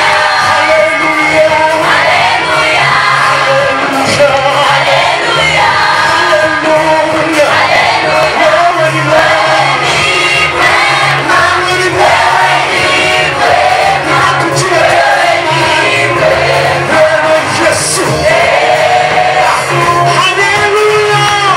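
A vocal group singing a gospel praise song with band accompaniment and a steady bass line.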